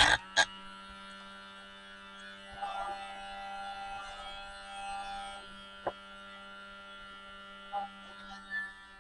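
Small electric cutting tool's motor running steadily with a low hum. It is louder and rougher for a few seconds in the middle as it cuts into the 3D-printed plastic plate, with a few sharp clicks.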